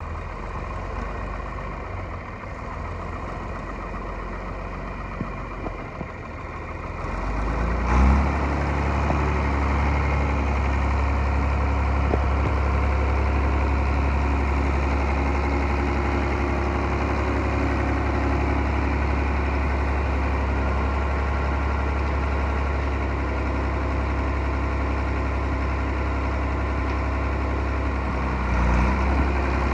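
John Deere 4010's six-cylinder diesel engine running with a steady low throb. It grows louder about eight seconds in, then runs on evenly.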